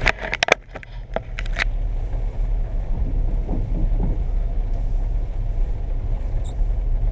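A quick run of clicks and knocks in the first second and a half, then a steady low vehicle rumble.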